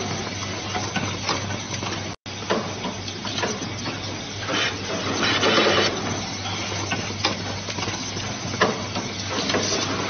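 Automatic wire-twisting (axial stranding) machine for fan wiring harnesses running. A steady low hum runs under louder stretches of mechanical noise that come back every few seconds, with a few sharp clicks. The sound cuts out completely for a moment about two seconds in.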